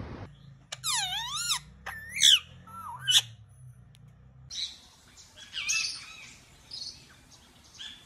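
Indian ringneck parakeet calling: a few loud, wavering calls that bend up and down in pitch in the first half, then quicker chattering chirps through the second half.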